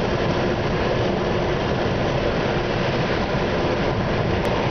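Steady road and engine noise heard from inside a car's cabin while it drives along a highway: a constant rumble and hiss of tyres and motor, with no change in level.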